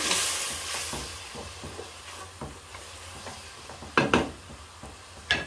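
Spice paste sizzling in a pot on a gas stove as it is stirred with a wooden spoon while being fried down. The sizzle is loud at first and dies down over the first second or two, and a few sharp knocks come near the end.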